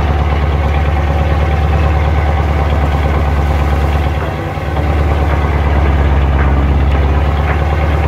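Outrigger boat's engine running steadily under way at sea, a loud low drone with rushing water and wind over it; the level dips briefly about halfway through.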